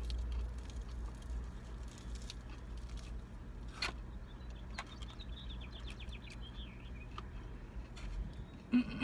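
Small clicks and rustles of fast-food containers being handled while eating, over a low steady hum. A bird trills briefly around the middle, and a short louder sound comes near the end.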